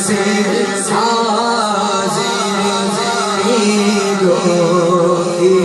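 Male voice singing an Urdu naat without instruments, drawing out long held notes.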